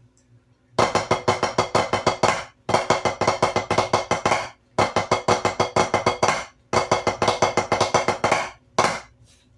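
Drumsticks playing the Swiss Army triplet rudiment: quick repeated strokes in four runs of about two seconds each, with short breaks between, then one last stroke near the end.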